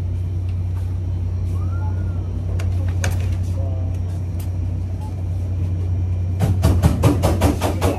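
A steady low hum with a few faint clicks. About six seconds in, rhythmic music with a drum beat starts.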